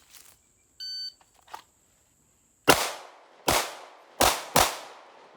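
A shot timer beeps once, then a pistol fires four shots in two pairs, two on each of two targets. The first pair is spaced a little under a second apart; the last two come close together, with the last shot rushed.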